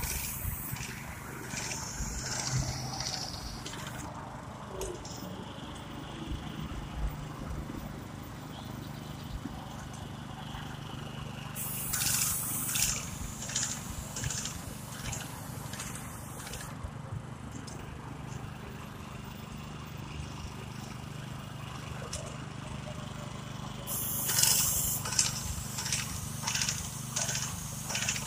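Line-striping paint machine's small gas engine running steadily, with hissing bursts of paint spray from its airless spray gun about halfway through and again near the end as a stall line is laid.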